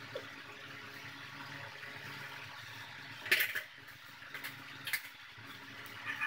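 Steady low hum of a small room, broken by a few short rustles and knocks, the loudest a little past three seconds in.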